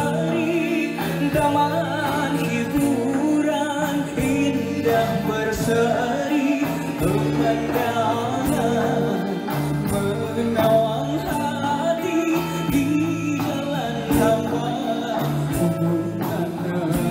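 Live band playing a Malay pop-traditional song, with a male singer's wavering, ornamented vocal line over drum kit and keyboards.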